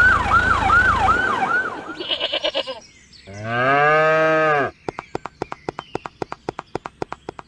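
A siren wailing in quick falling sweeps, about three a second, cuts off about a second in. A little later comes one long bleat from a sheep or goat, rising and then falling in pitch. It is followed by a fast, even run of clicks.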